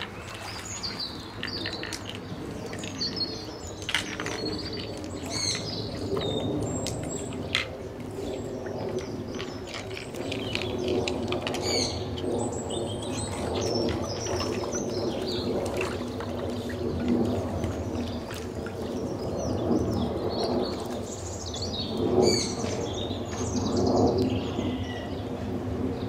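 Asian short-clawed otters chirping and squeaking, many short high-pitched calls in quick succession, over a low steady murmur.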